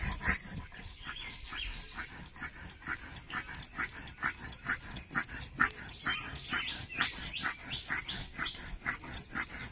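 Vegetables being chopped finely with a blade, the strikes coming in a steady rhythm of about three to four a second.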